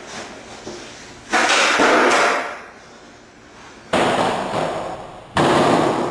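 Skateboard on a concrete garage floor: three hard slaps of the board, about a second and a half in, near four seconds and near the end, each followed by about a second of rolling noise that dies away, with a few lighter knocks between.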